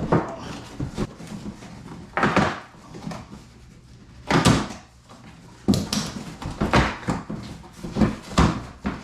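A skid plate being unpacked from its box: packaging rustling and scraping with irregular knocks and clatter, loudest about two seconds in, around the middle, and through the last few seconds.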